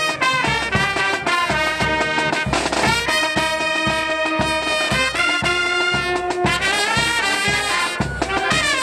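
Brass band playing a fanfare: trumpets and saxophones sound held melody notes over a steady drum beat.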